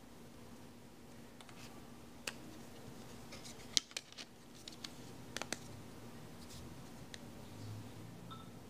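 Plastic clicks and snaps of a smartphone's back cover being pressed into place by hand: a scatter of sharp clicks, the loudest a little under four seconds in, with a quick run of clicks about a second later.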